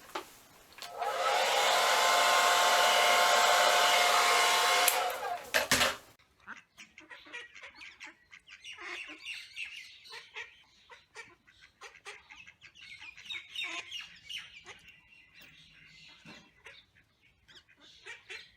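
Hand-held hair dryer switched on about a second in, running steadily with a motor whine under the rush of air for about four seconds, then switched off. After that, only faint small clicks and knocks.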